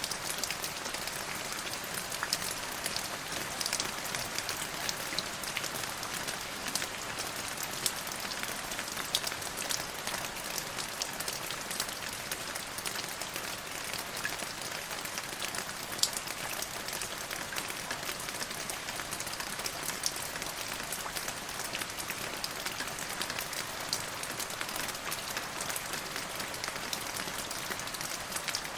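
Steady rain falling on a surface, an even hiss with many small distinct drop ticks.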